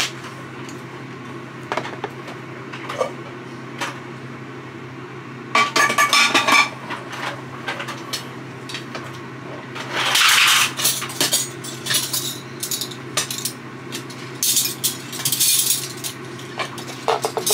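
Kitchen clatter of metal utensils and cookware knocking and clinking: scattered clinks, a dense run of them about six seconds in and another burst around ten seconds, over a steady low hum.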